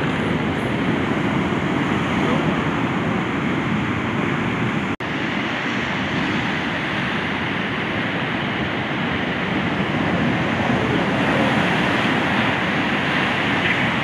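Rough Black Sea surf breaking and washing up a sandy beach, a steady loud rush of water that cuts out for an instant about five seconds in.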